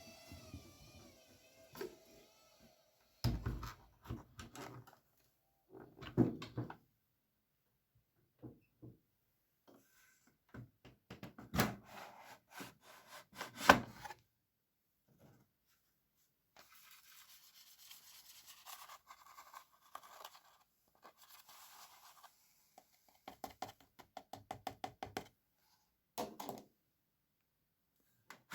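Scattered knocks, rubbing and clicks of hands working an AEG Lavamat W 1450 front-loading washing machine, as it is loaded and set for a wash, with a run of rapid clicks near the end.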